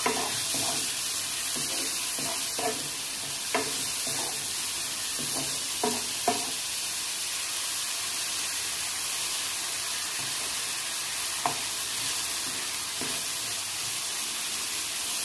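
Onion, tomato and spice masala sizzling in oil in a non-stick kadai as it is fried down, while a wooden spatula stirs it. Scattered knocks and scrapes of the spatula against the pan sound throughout, most of them in the first half, over a steady sizzle.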